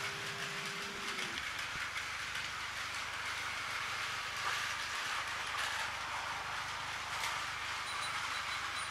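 Several battery-powered Plarail toy trains running on plastic track: a steady whir of small motors and gears, with wheels clattering over the track joints.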